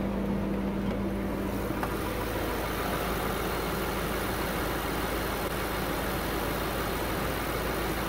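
BMW N63 4.4-litre twin-turbo V8 idling steadily at 800 rpm, heard over the open engine bay. It is a new engine running normally.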